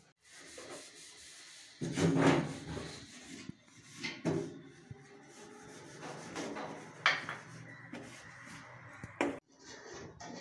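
Parts of a kitchen chimney hood being fitted back by hand: the steel filters and panel scrape and rub as they are pushed into place, with a few sharp knocks. The loudest handling comes about two seconds in.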